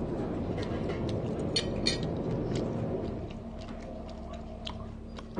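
A boat engine runs with a steady low rumble, and scattered light clicks and taps sound over it.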